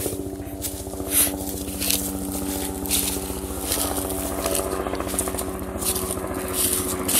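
An engine or motor running steadily, with short hissing noises about once a second.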